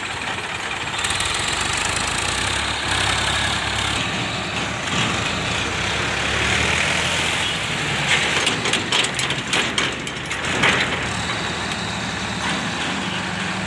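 Powertrac tractor's diesel engine running while its hydraulics tip the trolley to dump a load of sand, louder from about a second in. A run of rattling knocks comes about eight to ten seconds in.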